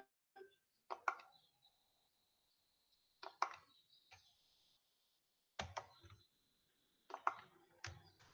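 Quiet scattered clicks and light taps, coming in small clusters every second or two, with a faint high whine between them.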